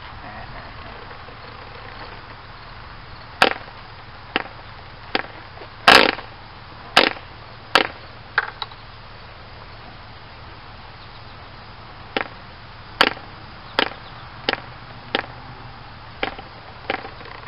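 OS Max 15D model diesel engine being hand-flipped by its propeller: a string of sharp snaps about a second apart as the prop is flicked over compression, one louder pop about six seconds in, and a pause of a few seconds in the middle. The engine does not catch and run.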